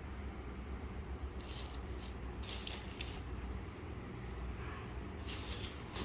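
Packaging rustling in three short bursts as the unboxed items are handled, over a steady low hum.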